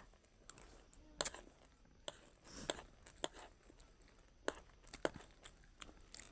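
Faint, scattered clicks and soft crunches of someone eating chatpat, a crunchy spiced puffed-rice snack.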